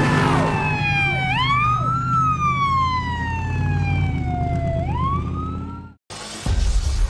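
A siren wailing: a tone that climbs, slides slowly down over about three seconds, then climbs again, over a low steady drone. It cuts off abruptly about six seconds in.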